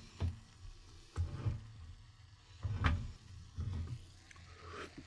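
A spoon stirring squid and sauce in a small nonstick frying pan, scraping and lightly knocking against the pan about once a second.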